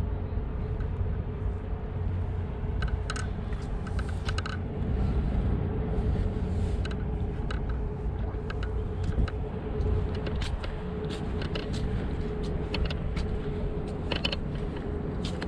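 Wind rumbling on a GoPro Hero 7 Black's built-in microphone, with a steady hum underneath and scattered light clicks and ticks.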